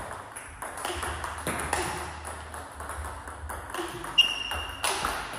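Table tennis balls being struck in a multiball drill: a quick, uneven run of sharp clicks of ball on racket and table. A brief high squeak sounds about four seconds in.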